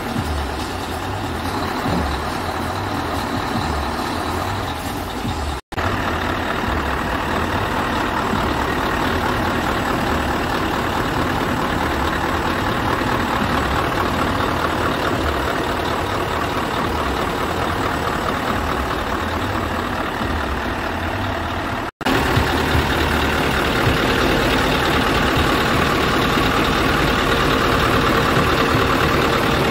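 Scania R tipper truck's diesel engine idling steadily with an even low pulse, cut off for an instant twice.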